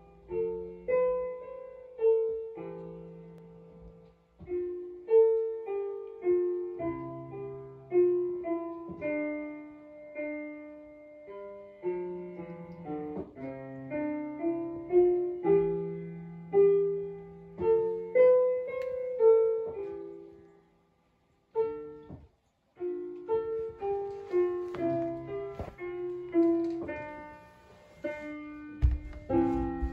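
Solo piano music: a slow melody of struck notes over held bass notes, breaking off for about a second two-thirds of the way through. A low thump sounds just before the end.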